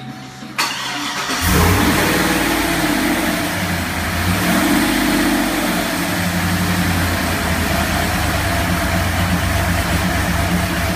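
Freshly built LS 403 V8 (a 6.6-litre stroker) in a Chevrolet Trailblazer SS, started for the first time. The starter cranks briefly about half a second in, and the engine catches about a second later. Its revs rise and fall for a few seconds, then it settles into a loud, steady idle.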